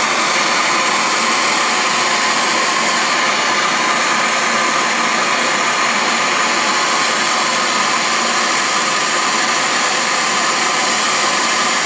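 MAPP gas torch burning with a steady, loud hiss as its flame heats a copper pipe joint for soldering.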